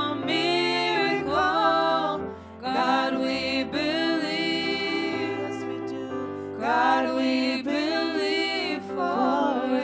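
Slow worship song: voices singing in phrases over sustained low chords, with short breaths between phrases.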